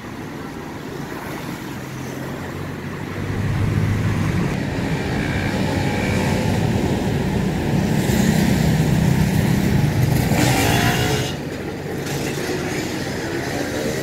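Road traffic. A vehicle engine grows louder from about three seconds in, stays loud for several seconds and drops off about eleven seconds in. Near the end another engine rises in pitch as it speeds up.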